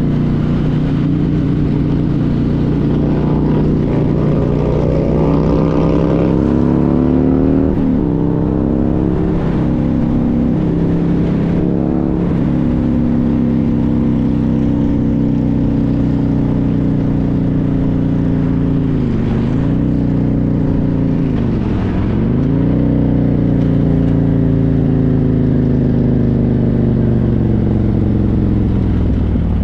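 Motorcycle engine heard from the rider's own bike while riding at speed, with a rush of wind noise underneath. The engine note shifts up and down several times, then dips sharply twice about three seconds apart and climbs back each time.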